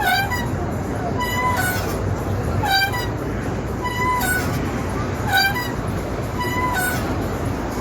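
Playground swing creaking as it swings back and forth: a metal squeak on each half of the swing, about every second and a quarter, alternating between a steady-pitched squeak and one that bends in pitch, over steady background noise.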